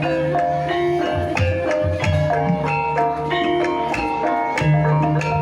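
Javanese gamelan music of the kind played for ebeg dance: mallet-struck keyed instruments ring out a steady repeating melody of sustained notes over a low pulse.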